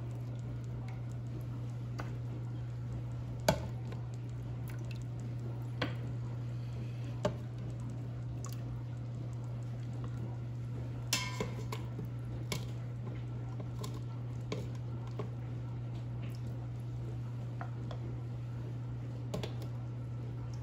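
Metal tongs clicking and knocking against a stainless steel Instant Pot inner pot and a plate as cooked chicken drumsticks are lifted out and set down. The scattered clinks come a few seconds apart, the sharpest about three and a half seconds in and a briefly ringing one around eleven seconds, over a steady low hum.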